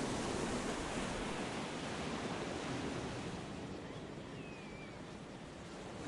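A steady rushing noise that swells and eases slowly, with a faint short high whistle about four and a half seconds in.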